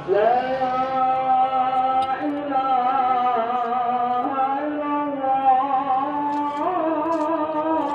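Background music starting abruptly: a slow melody of long, held vocal notes that slide and step between pitches.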